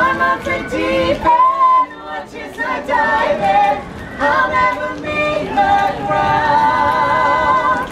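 Mixed a cappella vocal quartet, two women and two men, singing a pop song in close harmony. Held chords with vibrato near the end.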